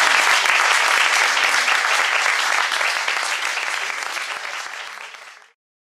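Audience applauding, a dense clatter of many hands that fades away and cuts off about five and a half seconds in.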